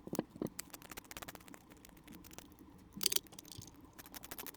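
Rapid small clicks and taps of a 3-way switch and its mounting nut being handled and fitted into a plastic dome light housing, with a louder scrape about three seconds in.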